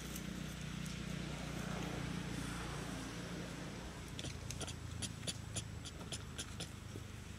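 Dry leaf litter crackling in a run of quick, light clicks about halfway through, as a macaque walks over it, above a steady low hum.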